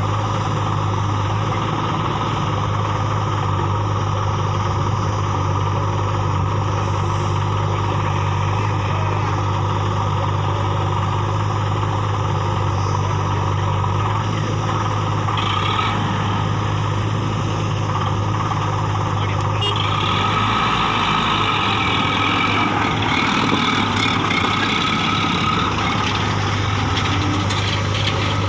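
Diesel engines of a Sonalika tractor and a JCB backhoe loader running with a steady low hum. About two-thirds of the way in, the hum gives way to a rougher, brighter engine noise as the tractor hauls the loaded trolley through sand.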